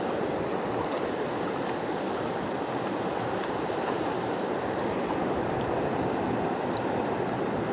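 Fast-flowing river rushing steadily, an even unbroken noise of moving water.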